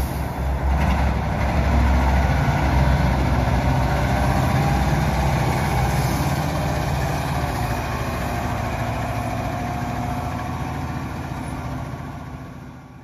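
1990 Caterpillar 613C elevating scraper's diesel engine running steadily as the machine drives by, fading out near the end.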